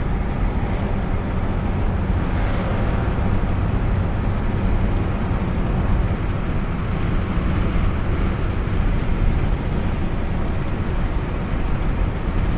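Steady road and engine rumble inside a moving vehicle's cabin, a low, even drone with no breaks.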